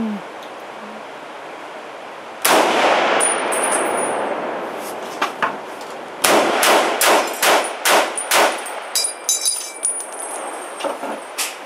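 M1 Garand rifle firing .30-06 rounds, echoing in an indoor range: one shot, then a quick string of about six more. After the last shot comes a high metallic ringing, the ping of the empty en-bloc clip ejecting and clattering.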